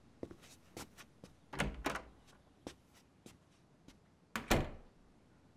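Audio-drama sound effects of a door: quiet taps and a soft thud about one and a half seconds in, then a door shutting with a louder thud about four and a half seconds in.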